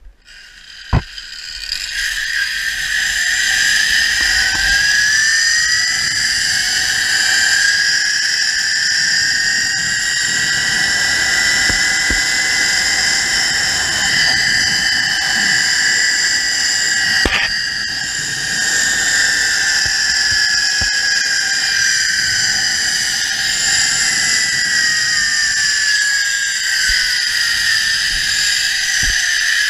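Zipline trolley pulleys running along the steel cable: a whine that climbs in pitch as the rider picks up speed, peaks midway and slowly falls as the ride slows, over a rush of wind. A click about a second in as the ride starts, and a single clank about halfway through.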